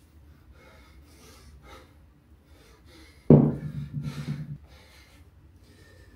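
Heavy breathing at rest, then about three seconds in a 100-pound kettlebell is set down on a concrete floor with a loud clank whose low ring lasts about a second.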